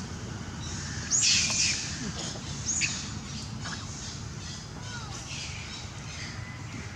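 Two short harsh animal squawks: a louder one about a second in and a brief one near three seconds in, followed by a few faint short chirps.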